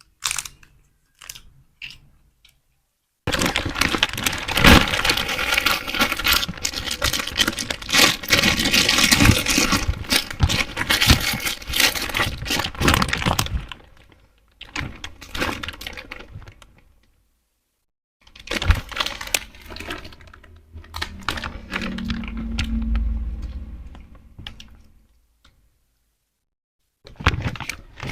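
Plastic snack wrappers being crinkled, crackled and torn open by hand, in several long bursts with short silent gaps between.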